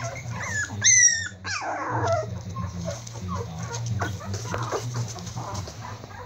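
Four-week-old Prague Ratter puppies whimpering and squeaking in short high, sliding calls, with one loud high yelp about a second in followed by a falling whine.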